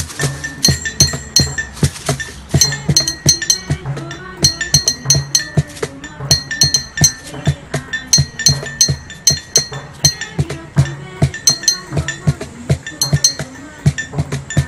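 Found-object percussion ensemble: glass bottles struck with sticks clink and ring over low drum-like thumps from a bucket and cans, playing a fast, busy rhythm.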